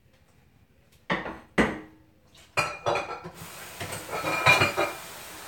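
Dishes clattering: a colander and bowl knocked down into a kitchen sink three times, then a steady rush of the tap running with dishes clinking under it.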